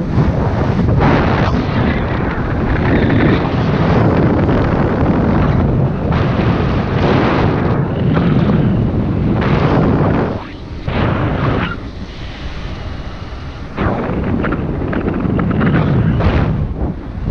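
Heavy wind buffeting on the microphone in flight under a paraglider wing, over a paramotor engine running steadily. The buffeting eases for about three seconds past the middle, then comes back.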